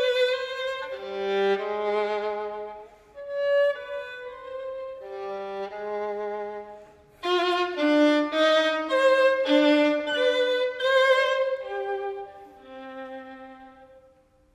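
Solo violin, a 1738 Carlo Bergonzi, playing slow phrases of sustained notes with vibrato and short breaks between them. It grows softer and dies away near the end.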